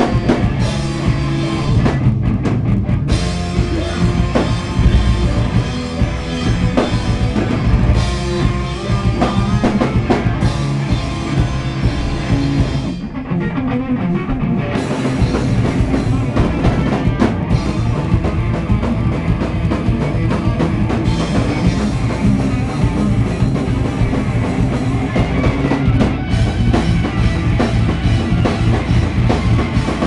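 A live rock band playing loudly: drum kit, electric guitars and bass. Near the middle the high end drops away for about two seconds before the full band comes back in.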